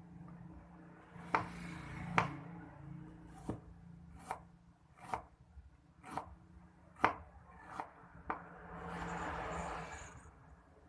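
Knife chopping on a cutting board: about nine separate sharp strikes, roughly one a second, followed near the end by a rushing noise lasting over a second.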